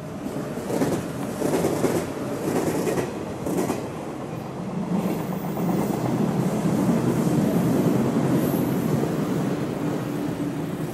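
Loud rolling rumble of a passing vehicle, with a run of clacks in the first few seconds and a steadier hum building about halfway through.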